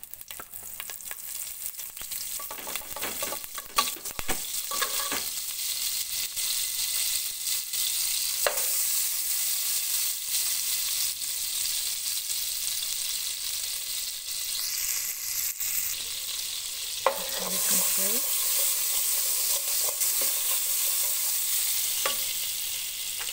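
Margarine melting and sizzling in hot olive oil in a pot, a steady frying hiss that builds over the first few seconds.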